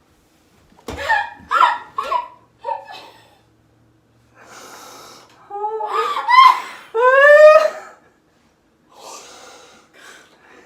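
Excited non-verbal vocal reactions: short gasps, then loud high-pitched squeals that slide up and down a few seconds in, with breathy laughter and heavy breaths between them.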